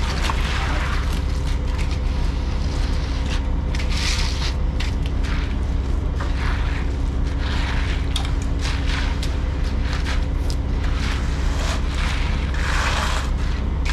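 Concrete mixer truck's diesel engine running steadily with a deep rumble and a constant hum, with irregular hissing scrapes over it.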